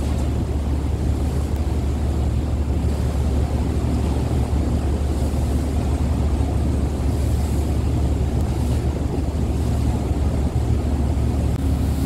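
Steady low rumble of the Sakurajima ferry's engines heard from the open deck, mixed with wind on the microphone and the wash of the sea.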